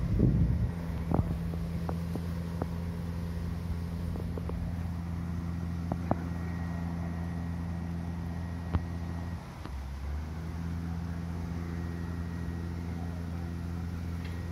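A machine running with a steady low hum, dipping briefly about two-thirds of the way through before carrying on. A few faint clicks sound over it.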